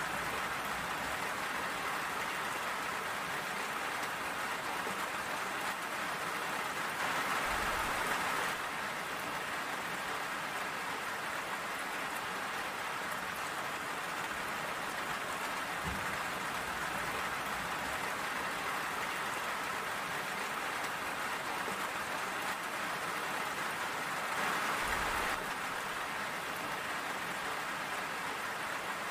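Steady rain falling, a dense even hiss, swelling briefly louder twice, about seven seconds in and again near the end.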